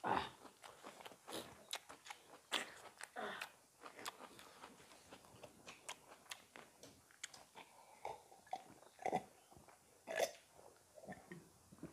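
Close-miked chewing and mouth smacking of people eating chicken curry and rice by hand, with scattered sharp crunches and clicks.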